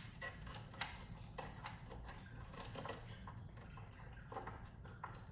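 Faint, irregular small clicks and light taps of a cable being handled and routed inside a PC case.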